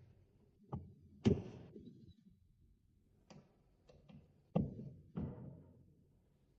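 A series of about seven sharp knocks and clicks, some with a brief ringing decay, from hard parts being handled and set in place on a smart lock's panel during installation.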